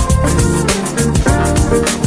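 Background music with a steady beat, drums and guitar.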